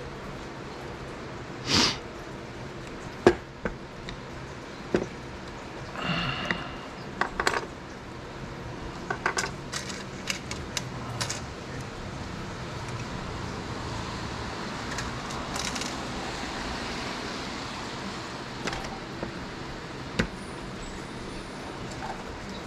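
Scattered metal clinks and knocks from handling a hinged jig-head casting mould and its hooks beside a lead-melting pot, with a sharp knock about three seconds in and quick runs of clicks around the middle.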